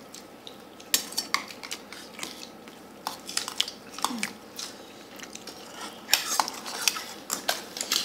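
Metal spoon clinking and scraping against a stainless steel bowl while scooping up rice, in bunches of sharp clicks about a second in, around three to four seconds, and again near the end.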